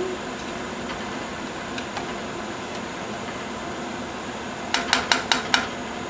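A metal spoon tapped about five times in quick succession against the rim of a stainless steel saucepan near the end, over a steady hiss.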